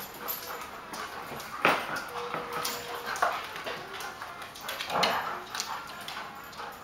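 Dogs play-fighting: a labradoodle, a Belgian Malinois and a Lab–Weimaraner mix barking and yipping in short outbursts. The loudest comes about one and a half seconds in and another about five seconds in, with a brief steady whine in between.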